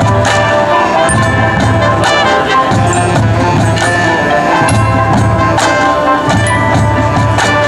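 Marching band playing loudly: sustained brass chords over drum hits and front-ensemble mallet percussion.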